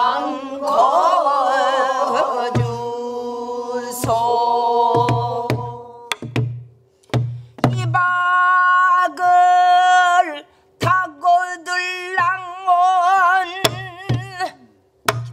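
Pansori singing in the slow jinyangjo rhythm: a woman's voice holds long notes with wavering pitch, with a group of voices singing along at first. The slow beat is marked on a buk barrel drum, with deep thumps on the drumhead and sharp clicks of the stick.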